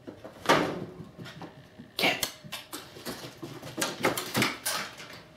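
A cat scrambling on a hardwood floor: claws skittering and paws thumping in a quick, irregular run of bursts, thickest in the second half.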